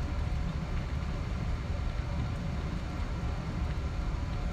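Cabin noise inside a Boeing 777-200ER taxiing: a steady low rumble from the engines at taxi power and the airframe rolling, with faint steady whine tones above it.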